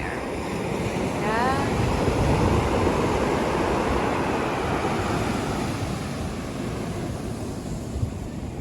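Sea waves breaking on a rocky shore: the surf rush swells about a second in, peaks, then slowly recedes. Wind buffets the microphone.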